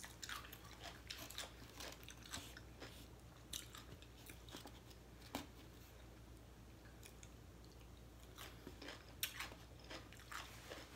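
Faint close-up eating sounds: a person chewing crunchy food, with irregular crisp crunches and wet mouth clicks.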